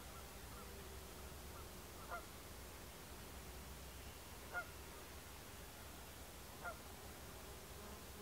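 Faint goose honks: single short calls about every two seconds, three or four in all.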